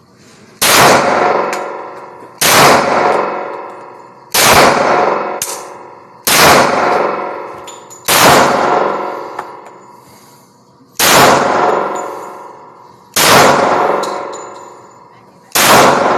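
A 10mm Glock pistol fired eight times, shots about two seconds apart with a longer pause after the fifth, each shot ringing out and fading over a second or two.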